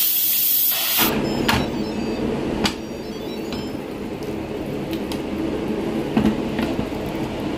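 Electric pressure cooker (Instant Pot) releasing steam through its valve after the release button is pressed: a loud hiss that stops about a second in, as the last of the pressure is let off. Then come a few separate clicks and knocks from the plastic lid being turned and lifted off the pot.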